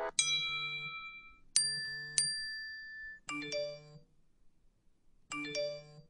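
Apple iPhone text-message alert tones playing one after another. First comes a ringing chime, then a two-strike chime, then two short, similar chimes about two seconds apart.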